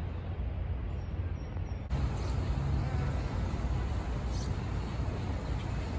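City street ambience: a steady low rumble of traffic, which steps up abruptly and grows a little louder about two seconds in.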